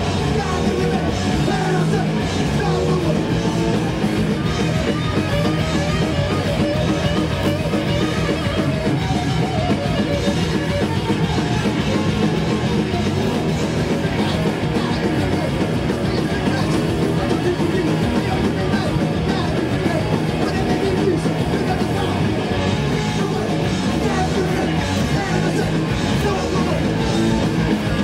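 Punk rock band playing live and loud: distorted electric guitars and bass driving on without a break, with shouted vocals over the top.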